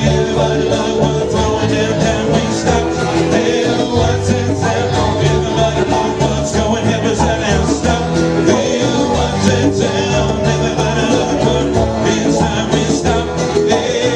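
A live band playing an instrumental stretch with plucked strings over a steady bass line, with no singing.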